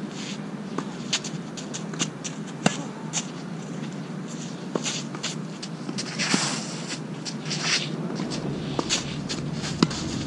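Tennis rally: sharp racket-on-ball hits every second or two, the loudest about two and a half seconds in and again near the end, with shoes shuffling and scuffing on the court between strokes.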